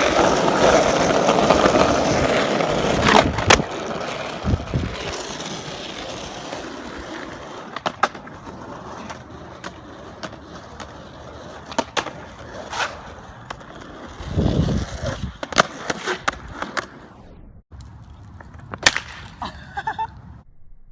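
Skateboard wheels rolling loudly on pavement, fading after a few seconds, then a scatter of sharp wooden clacks from the board being popped and landing.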